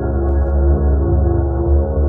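Ambient background music: slow, sustained layered tones over a deep low drone.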